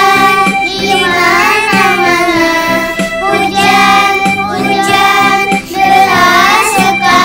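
A child's voice singing a children's song over instrumental backing music.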